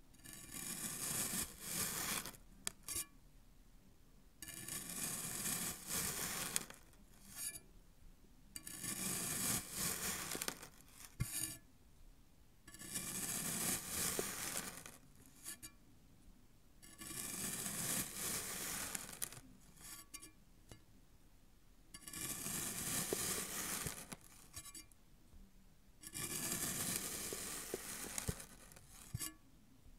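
A knife slicing slowly down through a molded block of brown kinetic sand, seven separate cuts each lasting about two seconds with short pauses between.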